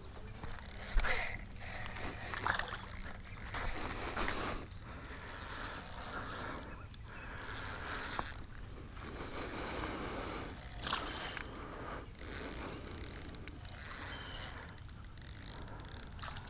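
Fishing reel being cranked in short spells, a mechanical whirring and clicking as line is wound in, with a louder knock about a second in.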